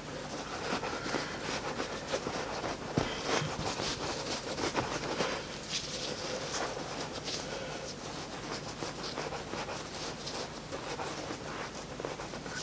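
Gloved hands pressing and tucking soft ceramic fibre wool insulation into a sheet-steel forge shell: irregular rustling and scratching with small ticks.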